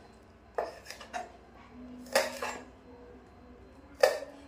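Kitchen utensils knocking and clinking: four irregular sharp knocks, the one about halfway through followed by a brief low ring.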